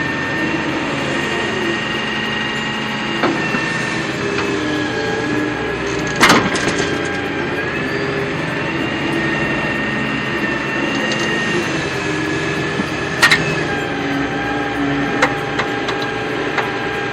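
Small electric gear motors of remote-control toy trucks and excavators whining steadily, their pitch drifting slowly as they work, with a few sharp plastic clacks about three, six and thirteen seconds in.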